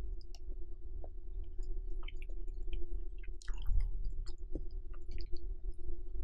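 Close-miked chewing of creamy shrimp carbonara: wet mouth clicks and smacks, with one louder noise about three and a half seconds in. A steady electric-fan hum runs underneath.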